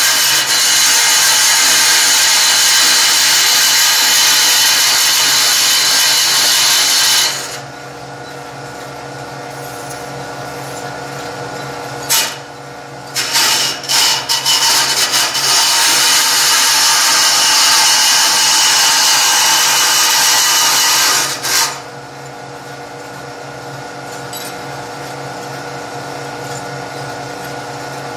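Electric grinder working a steel bracket: two long spells of loud, steady grinding, with a few short bursts in between, and the tool running on more quietly between and after the spells.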